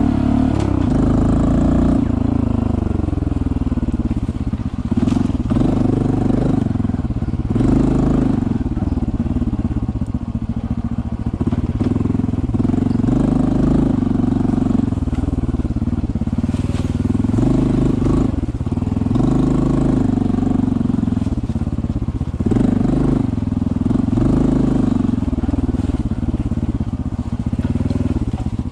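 Honda CT125's single-cylinder engine running as the bike is ridden along a trail, its revs rising and falling with the throttle, with a few short knocks mixed in.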